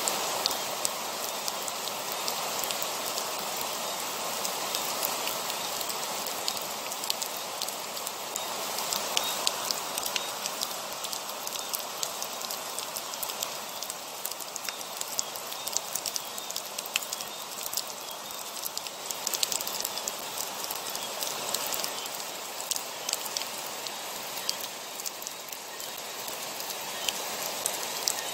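Heavy rain falling steadily: a dense, even hiss of rain with many sharp drop ticks scattered through it.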